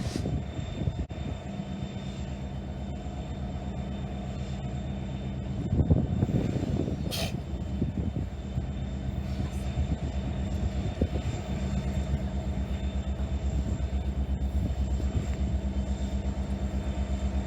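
A large engine idling steadily with a low rumble, growing louder and rougher for a couple of seconds about six seconds in.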